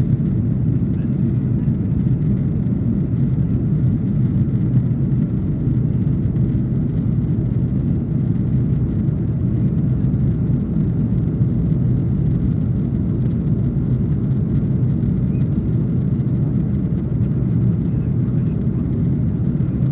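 Steady low rumble of jet engines and rushing air heard inside the cabin of an Airbus A330-300 climbing after takeoff.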